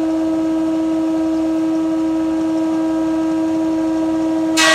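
Powermatic 20-inch thickness planer running unloaded, a loud, steady whine. Near the end the rough oak board reaches the cutterhead and a sudden, louder, ragged cutting noise starts on top of it.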